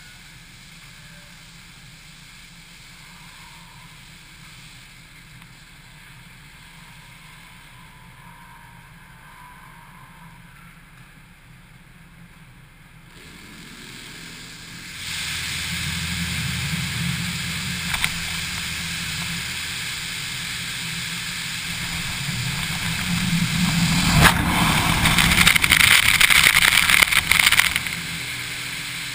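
Touchless car wash rinse cycle. A low steady hum runs through the first half, then the high-pressure water jets start about halfway through: a loud, even hiss that grows louder as the spray sweeps over the car roof and hits the camera, and falls away just before the end.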